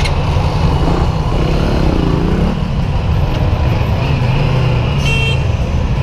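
Motorcycle engines running in street traffic as a steady, heavy low rumble. About two seconds in, an engine's pitch rises and falls as it revs.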